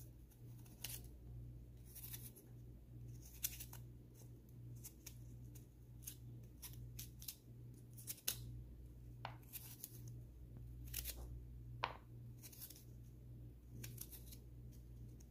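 A kitchen knife cutting notches into a raw carrot held in the hand: faint, short, crisp cutting strokes at irregular intervals, about one a second, over a steady low hum.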